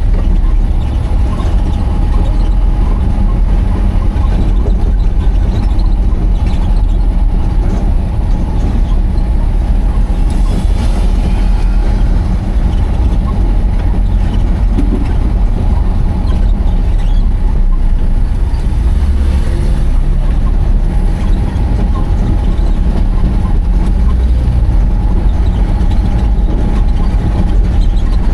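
Heavy truck's diesel engine running steadily, a constant low rumble with a thin steady tone riding above it.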